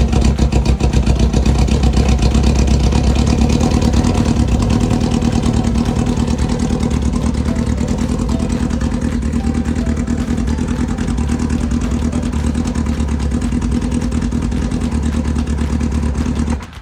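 Kawasaki ZX10R's inline-four engine running steadily just after a hard start, an engine the owner says needs a tune; it stops suddenly near the end.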